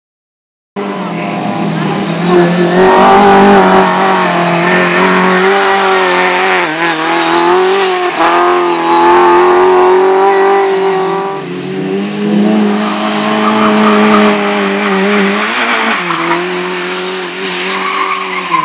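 Speedway motorcycle engines running hard around a cinder track, cutting in abruptly under a second in at a steady high pitch that dips briefly a few times as the riders roll off and drive again.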